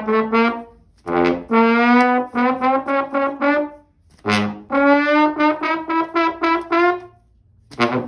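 Trombone played in short detached notes, in quick phrases with brief pauses about a second and about four seconds in, a short loud blast just after the second pause, and one more brief note near the end.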